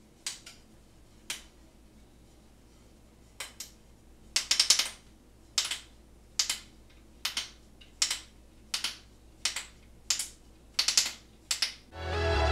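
A large adhesive sheet with a paper liner being handled and pressed by hand: a series of short, sharp crinkles and crackles, some in quick clusters. Background music fades back in near the end.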